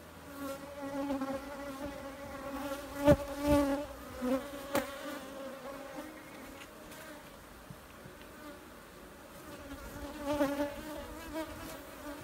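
Africanized honey bees buzzing around an open hive, a steady hum whose pitch wavers as bees fly past. A few sharp knocks cut through it, the loudest about three seconds in and another near five seconds.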